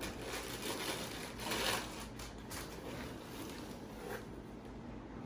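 Rustling and crinkling of paper gift packaging being handled and opened, loudest about a second and a half in.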